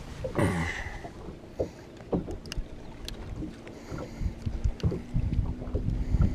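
Scattered light clicks, taps and rustles of handling as pliers are picked up off a boat deck and a hook is worked out of a small bass's mouth. A faint steady low hum comes in about two and a half seconds in.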